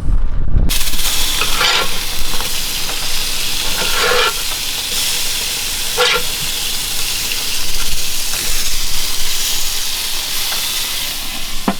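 Steak and sausages sizzling on a Weber barbecue grill: a steady hiss that starts abruptly just under a second in, with a few short louder moments.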